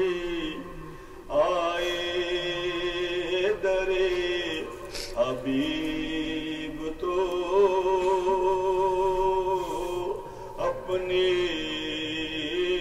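A man chanting a religious recitation solo into a microphone. He holds long, wavering, ornamented notes in phrases, with short breaks for breath.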